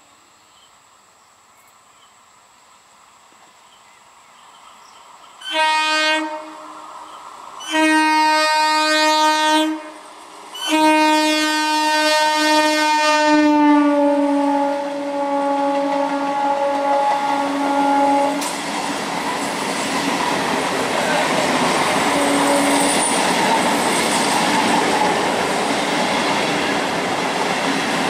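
Howrah–Katwa EMU local train sounding its horn three times as it approaches: a short blast, a longer one, then a long blast whose pitch drops slightly as the train reaches and passes. The horn then gives way to the loud, steady running noise of the coaches rolling past.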